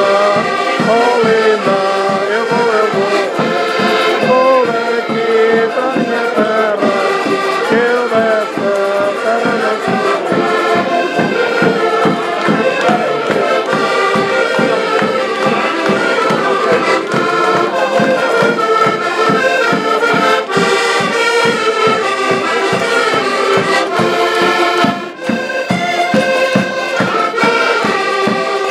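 A group of diatonic button accordions (concertinas) playing a lively Portuguese folk tune together, over a steady pulsing bass.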